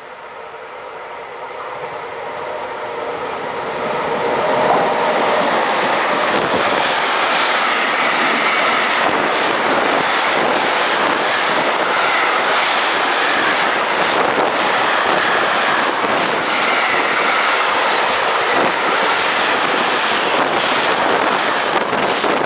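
Electric-hauled intermodal freight train approaching and passing close by. Its sound grows louder over the first four seconds or so, then holds as a steady rolling rumble of tank-container and container wagons, with a rapid clatter of wheels over the rail joints.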